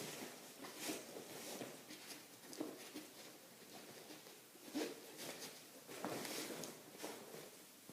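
A nylon tactical hunting bag and pouch being handled, with fabric rustling and scuffing in irregular short bursts.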